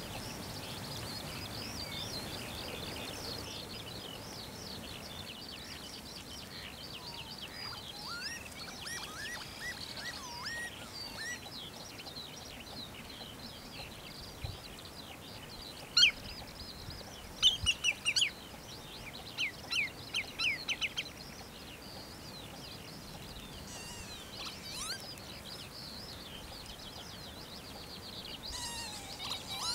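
A chorus of many wild birds chirping and twittering without a break. About halfway through come a few louder, sharp chirps in quick runs.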